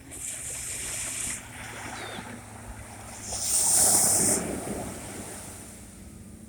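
Sea waves washing on the shore in two surges, the second one louder, about four seconds in.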